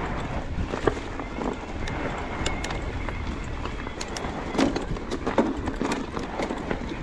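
Mondraker Crafty electric mountain bike rolling down a rocky trail: tyres crunching over loose stones, with frequent knocks and rattles from the bike and a low rumble of wind on the microphone.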